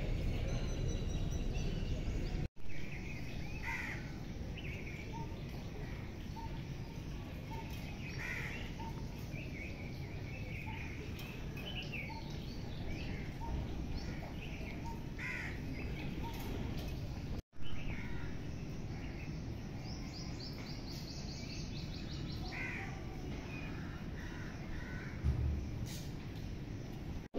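Wild birds calling and chirping over a steady background hum, with a run of short repeated notes and, about three quarters of the way through, a quick high trill. The sound briefly drops out twice.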